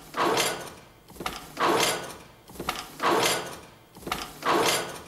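Weaving loom working in a steady rhythm: a knock followed by a sliding rasp, repeating about every second and a half, four times over, one per pass of the weaving cycle.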